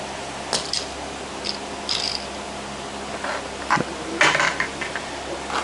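Handling noises of die-cast toy cars and a carded blister pack being picked up and set down on a counter: scattered small clicks and rustles, busiest about four seconds in, over a steady low hum.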